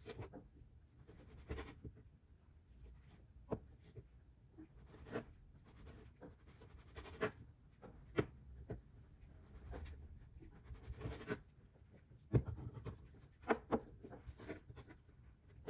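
A cleaver trimming the crusts off slices of white bread on a plastic cutting board: faint scratchy crunching as the blade cuts through the crust, broken by irregular sharp knocks of the blade against the board.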